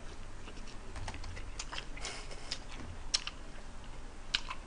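Close-up chewing of a mouthful of pizza: irregular wet mouth clicks and lip smacks, a few a second, over a faint low hum.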